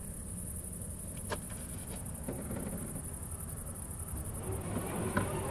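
Crickets trilling steadily in the dark, over a low rumble, with a sharp click just over a second in and another near the end.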